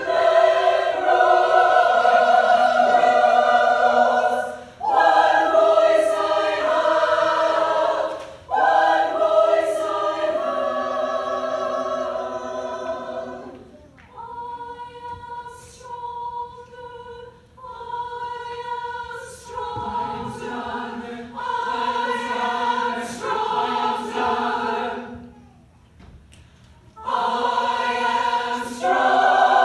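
Women's choir singing in harmony, with short breaks between phrases. About halfway it turns softer with fewer voices, then falls nearly silent for a couple of seconds before the full choir comes back in loud near the end.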